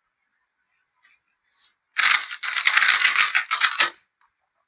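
Gan 251 M Pro magnetic 2x2 speedcube being turned very fast for about two seconds, a dense run of plastic clicking and rattling, starting about two seconds in.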